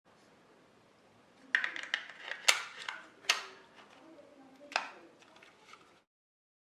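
Hard plastic clicks and knocks from a smoke alarm and its mounting plate being handled and rotated into place: a cluster of sharp clicks starting about one and a half seconds in, the loudest near two and a half and three and a half seconds, with a last one near five seconds.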